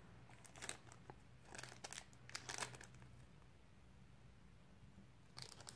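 Faint crinkling of a small plastic zip bag of screws being picked up and handled, in a few short rustles during the first three seconds and again near the end.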